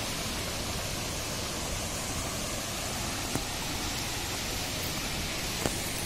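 River water rushing over rocks and rapids: a steady, even hiss.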